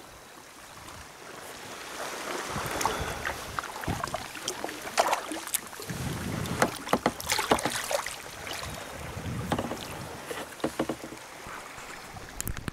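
Kayak paddling in calm sea water close to the microphone: paddle blades dipping and splashing, with water dripping and lapping against the hull. The splashes come thick and irregular after the first couple of seconds.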